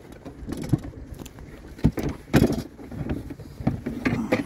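Irregular knocks and bumps with handling noise as a caught catfish is wrestled into a bucket in a small fishing boat, the loudest thump about halfway through.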